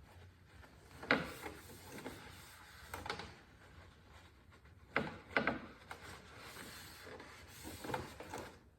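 A rag rubbing and wiping excess oil off a motorcycle around the freshly refitted drain plug, with a few sharp clicks and knocks of handling, two close together about halfway through.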